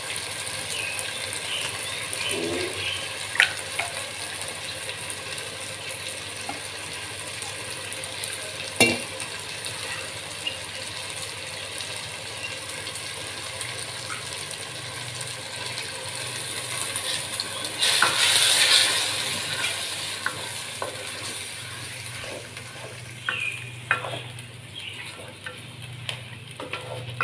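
Chilli-masala paste frying and sizzling in sesame oil in a clay pot, while a wooden spatula scrapes the paste in from a bowl and stirs it, with a few sharp knocks. The sizzle swells briefly about two-thirds of the way through.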